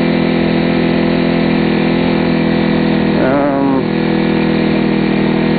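A cruiser motorcycle's engine running at a steady, unchanging speed while riding along the road.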